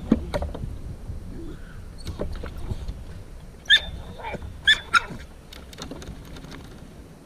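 A dog gives about three short, high-pitched yips and whines about halfway through, over a low rumble.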